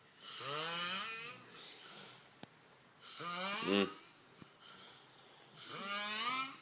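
A sleeping man snoring: three long snores about two and a half seconds apart, each rising in pitch and then levelling off. The middle snore is the loudest and ends in a rattle.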